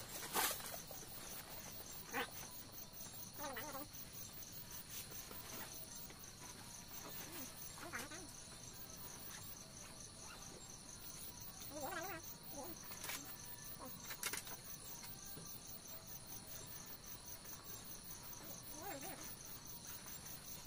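Night insect chorus: crickets chirping steadily in a fast, even, high trill. A few light clicks and knocks of things being handled come through it.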